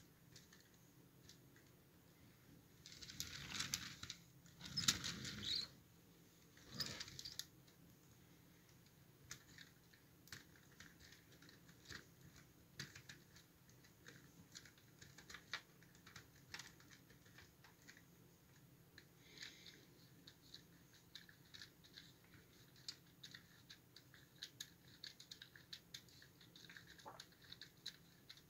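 Plastic Lego Technic gears and axles clicking faintly and irregularly as the crane's mechanism is turned by hand to raise the boom. A few louder stretches of rustling handling noise come about three to seven seconds in.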